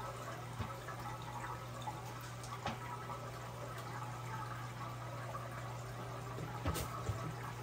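Toto toilet tank refilling through its fill valve after the supply valve is reopened, a steady rush of water, with a steady low fan hum beneath it and a sharp click near the end.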